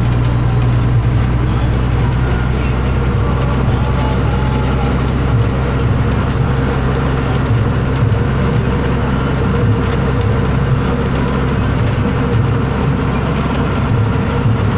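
Diesel bus engine running at road speed, heard from inside the cabin as a steady low drone, with light rattling clicks from the bus body.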